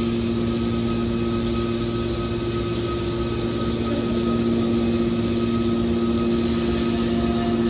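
Industrial machinery running steadily with a constant, even hum over a noisy background.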